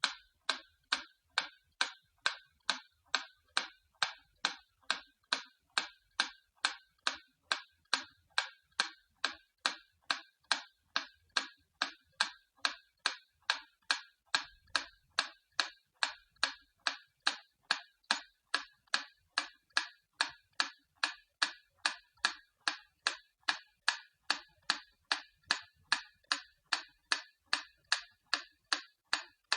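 Antique clock ticking at about two ticks a second, even and unbroken.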